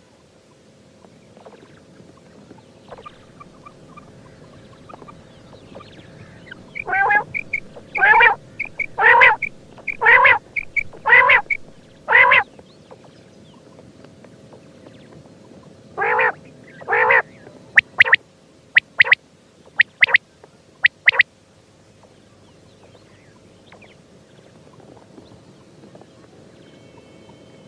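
Quail (batair) calling: a run of six loud calls about a second apart near the middle, then two more, then several short sharp notes, with quiet gaps between.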